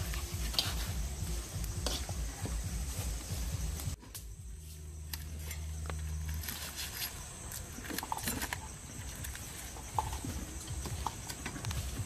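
Scattered light taps and clicks as a cleaver and hands work at stick skewers of grilled fish on a wooden board, over a low rumble.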